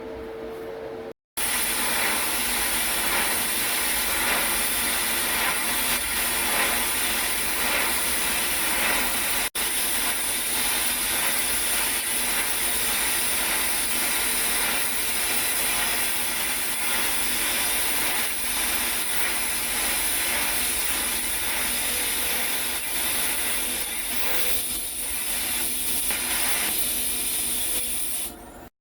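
Steady hiss of a TIG welding arc during automatic circumferential welding of galvanized steel pipe. It starts abruptly after a short break about a second in and cuts off just before the end.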